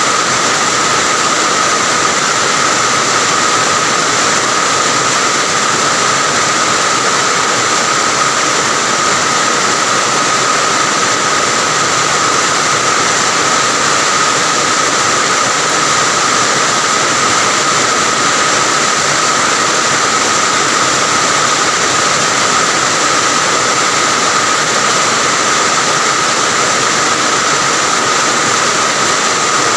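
Steady heavy rain falling, an even unbroken hiss.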